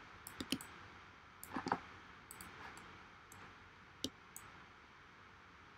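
About seven faint computer mouse clicks, scattered and some in quick pairs, as values are adjusted in the 3D software.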